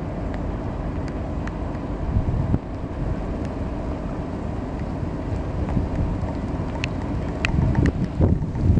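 Wind buffeting the microphone: a low, gusty rumble that swells again near the end, with a few faint clicks.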